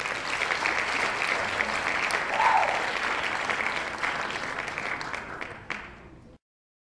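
A crowd applauding with dense clapping, with a brief shout about two and a half seconds in. The applause fades over the last second or so and then cuts off abruptly.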